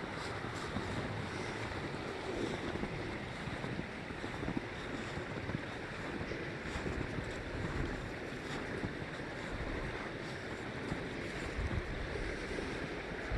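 Creek water rushing steadily, an even hiss-like roar.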